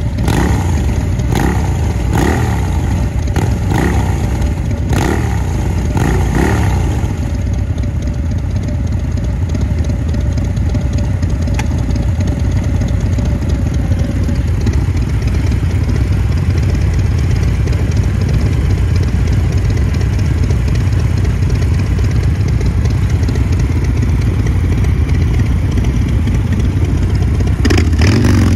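Custom Harley-Davidson V-Rod's V-twin through an aftermarket exhaust, blipped in a string of short revs over the first seven seconds, then settling to a steady idle. Near the end the motorcycle engine sound swells sharply again.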